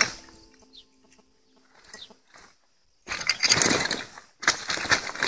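Dry brush, branches and rubbish crackling and crunching as they are trampled close by, in two stretches beginning about three seconds in, after a few faint ticks; a tail of music dies away at the very start.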